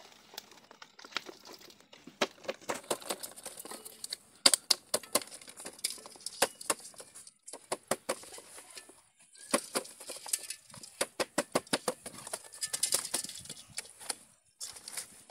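Quick, irregular tapping and rattling as a cylindrical fish trap is shaken out into a metal pot and the small live fish slap and flap against the trap and the pot.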